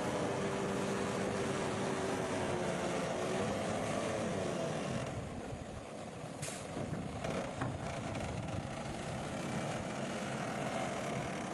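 Heavy construction machinery and trucks running, a steady engine drone whose pitch shifts slightly. About five seconds in, the high hiss drops away and a short, sharp hiss follows about a second later.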